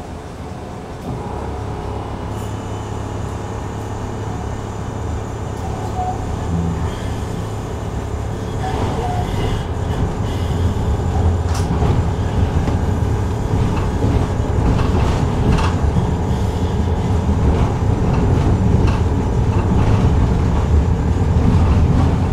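Tram running along the track, heard from inside the car: a low rumble that grows steadily louder, with scattered sharp clicks from the wheels and rails.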